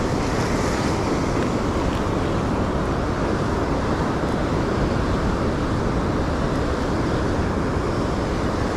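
Steady wind rumbling on the microphone, mixed with the wash of surf on the beach.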